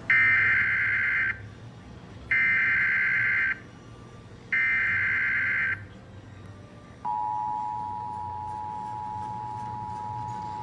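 Emergency Alert System tones from a TV: three SAME header data bursts, each a buzzing warble about a second long, carrying the coded severe thunderstorm warning. About seven seconds in comes the steady two-tone EAS attention signal, which holds on without a break.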